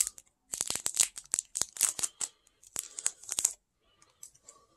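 Foil Pokémon booster pack wrapper crinkling and crackling as the card stack is worked out of it: a rapid run of sharp crackles that dies down to a few faint ones about three and a half seconds in.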